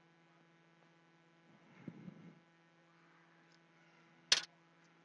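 Faint steady electrical hum from the bench equipment, with a soft low rustle about two seconds in. A single sharp click a little after four seconds as a hand reaches to the inline USB power meter.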